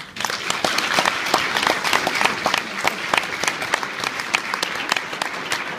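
A crowd applauding: many hands clapping at once, starting suddenly and dying down near the end.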